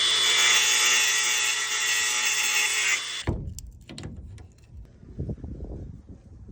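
Power drill running steadily for about three seconds, then stopping suddenly; it is followed by a few low knocks and handling sounds.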